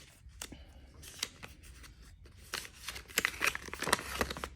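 Paper and cardboard packaging being handled: rustling with light clicks and taps, sparse at first and coming thicker in the last couple of seconds.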